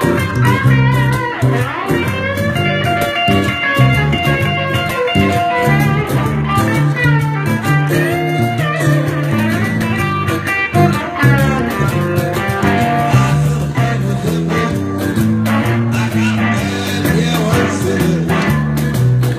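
Live blues-rock on electric and acoustic guitar: the electric guitar plays a lead line of bending notes over the acoustic guitar and a stepping bass line.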